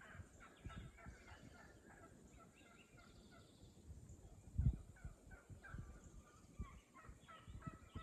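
Hen turkeys calling faintly, a string of short repeated notes, with a low thump a little before halfway through.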